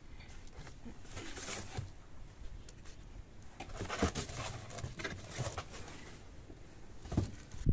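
Cardboard box and plastic plant pots being handled: irregular rustling and scraping of cardboard with a few light knocks, busiest about a second in and again around the middle.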